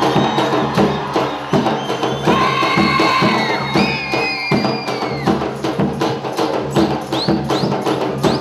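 Gujarati folk dance music: drums and percussion keeping a fast, steady beat under a high held melody line.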